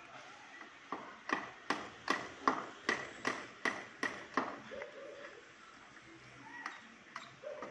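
A run of about ten sharp clicks, evenly spaced at a bit under three a second, starting about a second in and stopping a little past the middle.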